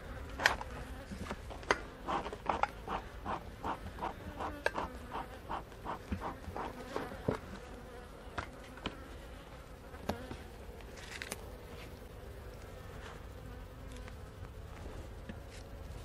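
Honey bees buzzing around an open hive. Through the first half come a run of sharp clicks and cracks, about two a second, as the propolis-glued inner cover is pried loose and lifted off the honey super. They thin out after that.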